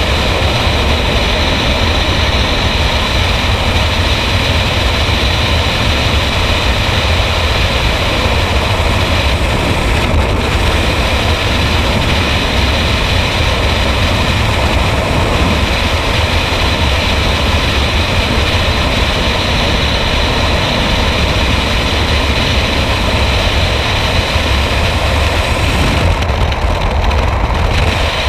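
Skydiving freefall wind rushing over a helmet-mounted camera's microphone: a loud, steady rush heaviest in the low end.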